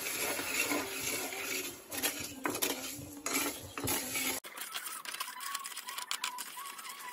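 Caramelising sugar sizzling in a hot steel wok just after water has been added, with a wooden spatula scraping and tapping the wok. About four seconds in the sizzle cuts off abruptly, leaving quieter quick clicks and scrapes of the spatula.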